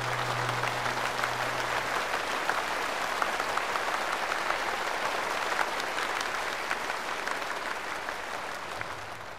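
A large audience applauding, many hands clapping together in a dense, steady ovation that dies away over the last couple of seconds.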